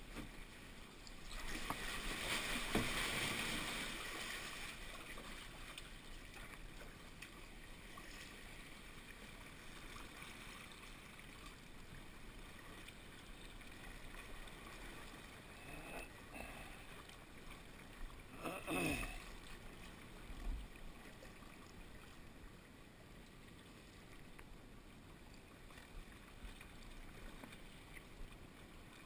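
Water sloshing and lapping around a kayak as it is paddled past sea-cave rock, with a louder rush of water a couple of seconds in. About two-thirds of the way through there is a short, sharp sound with a falling pitch.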